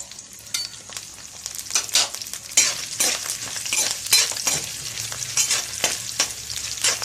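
Coriander seeds, dried red chillies, garlic and ginger sizzling in hot oil in a kadai, stirred with a spatula that scrapes and knocks against the pan in short irregular strokes. The sizzle and stirring get louder a couple of seconds in.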